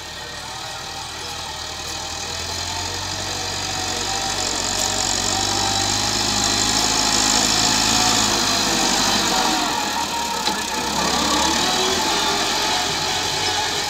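Massey Ferguson 385 tractor's four-cylinder diesel engine running under load as it pushes sand with its front dozer blade, steadily growing louder as it comes closer, loudest a little past halfway.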